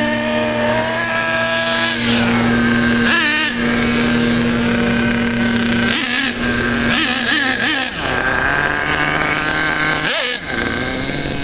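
Exceed Madfire RC buggy's .21 nitro engine running as the buggy drives past, its pitch rising and falling several times with the throttle. The engine is being run rich and below full throttle while it is broken in, as far as the owner thinks.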